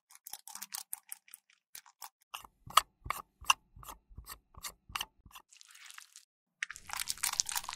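Small plastic bottle handled close to the microphone: a run of sharp plastic clicks, about four a second, as its cap is twisted off. From about five and a half seconds in there is a scratchy rustling rub as a thin stick is pushed into the bottle's neck.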